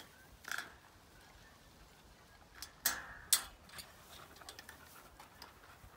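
Trampoline springs clinking and clicking against the steel frame as they are levered off one by one with a homemade wooden lever; a few scattered metallic clicks, the loudest a pair close together about three seconds in.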